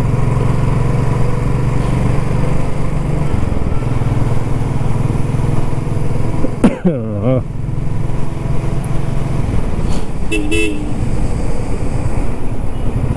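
Royal Enfield Classic 350 single-cylinder engine running steadily on the move, a low drone under the ride. A short pitched sound with a downward-bending tone cuts in about seven seconds in, and a brief higher beep follows around ten seconds.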